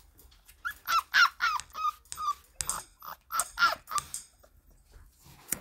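Siberian husky puppy vocalising in a run of short, high-pitched whining calls that bend up and down in pitch. The calls come from about half a second in to about four seconds.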